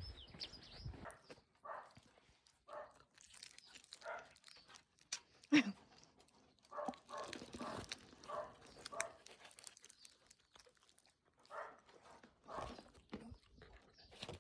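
A dog making short, irregular sounds one after another, with a sharp click about five and a half seconds in.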